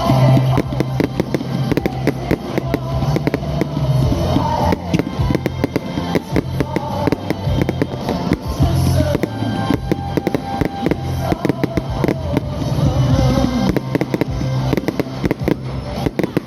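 Fireworks display going off: a dense, unbroken run of crackles and bangs, with music playing underneath.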